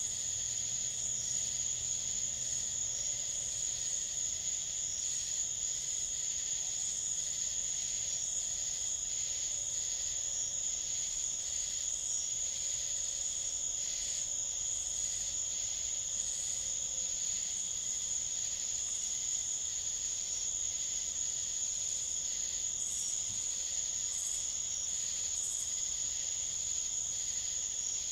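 Night insect chorus of crickets: a steady, unbroken high-pitched trill, with fainter, quicker pulsing calls from other insects above it.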